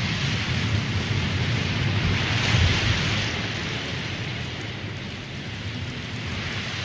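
Steady rainfall ambience with a low rumble beneath, swelling about two seconds in and then easing off.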